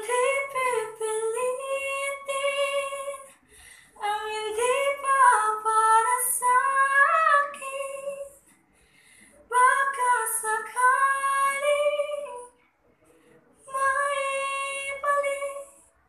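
A teenage girl singing a Tagalog ballad unaccompanied, in four held, sliding phrases with short breaths between them.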